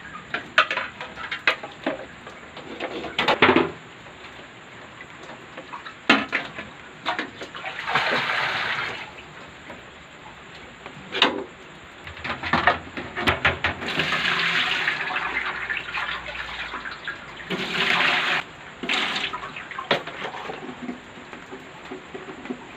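Water being scooped with a plastic dipper and poured into a large aluminium steamer pot, with three longer pours of a second or two each among many sharp knocks and clanks of the dipper and metal pot.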